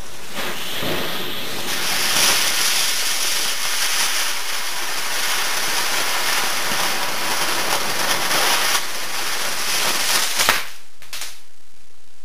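Firework fountain hissing fiercely as it sprays a shower of sparks for about ten seconds, then cutting off with a couple of sharp cracks near the end.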